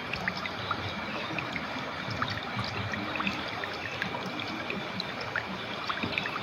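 Clear river water flowing steadily, an even rush with many small bubbling plinks and gurgles.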